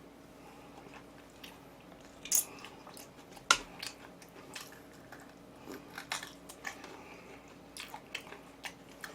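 Close-up eating sounds: a person chewing and biting food, with scattered short crunches and wet mouth clicks, the sharpest about two and a half and three and a half seconds in, over a faint steady hum.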